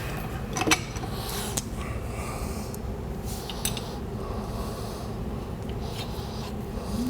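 A few sharp metallic clinks and some scraping of metal tools and parts over a steady low hum. Near the end a low steady tone rises in and holds.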